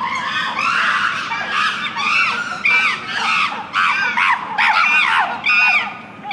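Chimpanzees screaming in an angry dispute: a loud, rapid run of high, arching screams, about two a second, rougher at first and breaking off shortly before the end.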